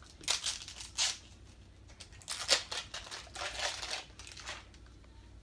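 Toy packaging being torn and crinkled open by hand, in about five short, scratchy rips and rustles.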